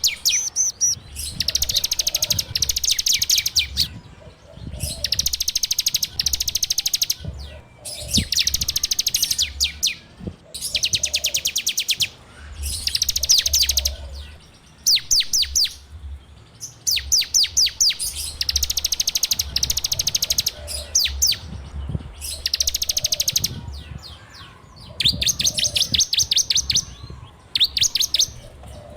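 Bar-winged prinia (ciblek) singing its fast rattling 'ngebren' trill in repeated bursts of a second or two, with short pauses between them, about a dozen times.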